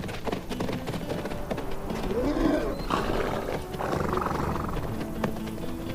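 Namib desert feral horses calling, with one rising-and-falling call about two seconds in and another around four seconds in.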